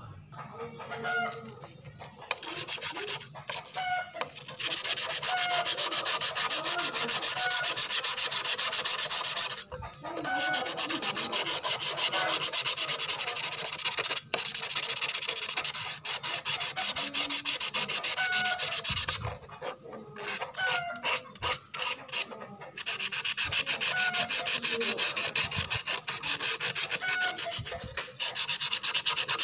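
Rapid back-and-forth scrubbing of a rusty steel knife blade by hand against an abrasive, a fast rasping hiss as the rust is worn off. It stops briefly about a third of the way in and for a few seconds past the middle.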